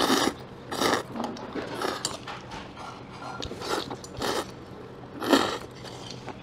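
Slurping of Pyongyang naengmyeon buckwheat noodles in cold broth: a series of short, wet slurps at an uneven pace, the loudest about five seconds in, followed by chewing.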